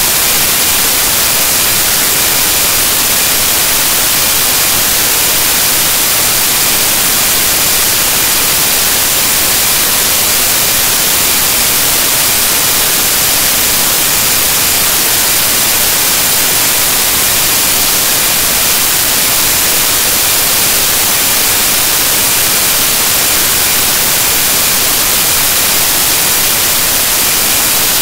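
Loud, steady static hiss with no other sound in it: the noise of a corrupted audio track, matching the garbled picture.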